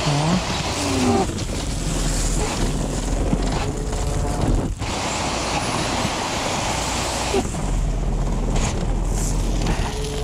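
Truck's diesel engine running with the hydraulics engaged to tip the load off the body: a loud, steady mechanical noise with a few short rising whines near the start.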